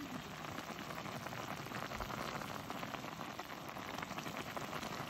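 A pot of instant ramen noodle soup boiling hard on a portable gas camping stove, with a steady, dense bubbling crackle.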